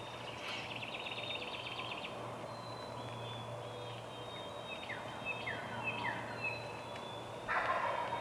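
Wild birds singing: a fast high trill about half a second in, then several short whistled notes that slide downward. A louder, rougher call comes near the end, over a low steady hum.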